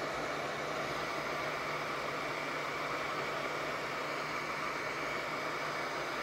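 Hot air rework gun of a Sumsour 8586 (Atten 858D-style) station blowing steadily, a constant rush of air with a low hum, as it heats a board to free tiny SMD components.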